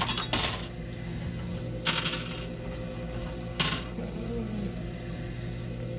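Quarters clinking in a coin pusher arcade machine: three short bursts of coins dropping and sliding, about half a second, two seconds and three and a half seconds in, over the machine's steady hum.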